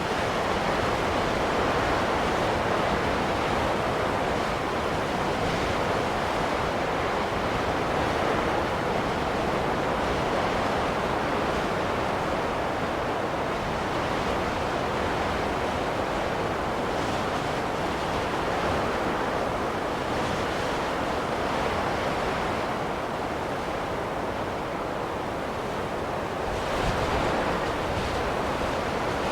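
Steady rushing noise of a wind-or-surf-type nature ambience, even in level with no tune or beat, swelling slightly near the end.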